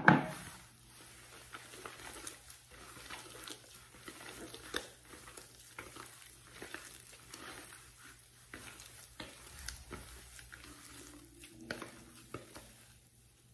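A hand squishing and working wet bread dough in a plastic mixing bowl: a steady run of soft, irregular squelches and slaps. It opens with a sharp knock as a plastic cup is set down on the wooden board.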